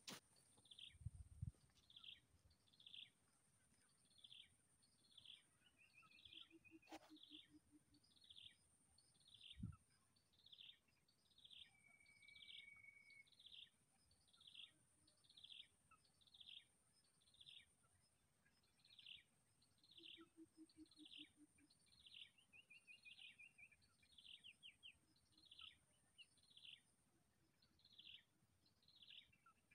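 Faint bird calling over and over: short whistled notes that slide downward, a little over one a second, with an occasional trill between them. A steady thin high tone runs underneath, and there are two soft low thumps, one about a second in and one about ten seconds in.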